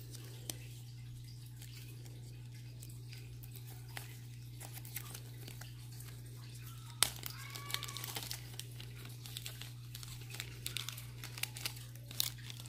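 Small clear plastic jewelry bag crinkling as it is handled, with scattered light clicks, busiest about seven seconds in, over a steady low hum.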